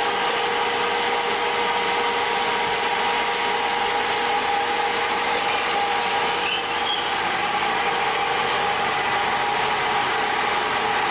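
Crane truck's engine running steadily to power the hydraulic crane, with a steady whine over the engine noise.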